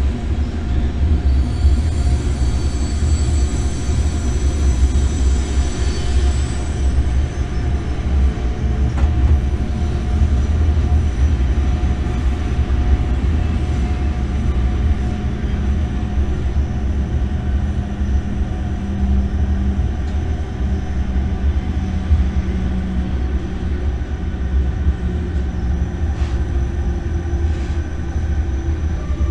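Electric freight locomotive running, heard from inside the cab: a steady low rumble of the moving train, with a faint high whine for a few seconds near the start.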